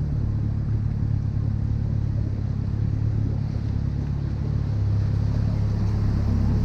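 Outboard motor running at a steady speed with the boat under way, a constant low hum.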